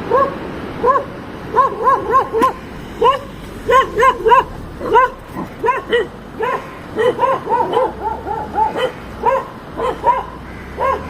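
Dogs barking at a car they are chasing: a dense, continuous run of short barks, several a second at times and sometimes overlapping.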